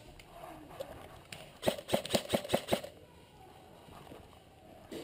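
A quick run of about six or seven sharp airsoft gun shots, about six a second, lasting a little over a second.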